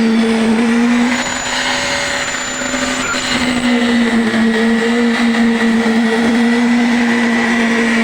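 Concrete needle vibrator running with a steady high hum. Its loudness and pitch dip briefly about a second in, then it settles back to an even drone.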